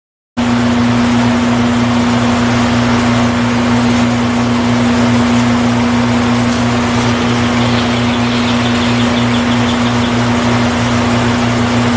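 Vertical milling machine running with a steady hum, its end mill taking a facing cut on a timing-chain cam gear clamped to a rotary table. The sound starts abruptly just after the beginning, and a light rapid ticking comes in during the second half.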